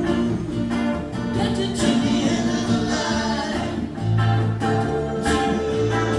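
A band playing a song: electric and acoustic guitars, bass and percussion with singing, with steady drum strokes under the sustained notes.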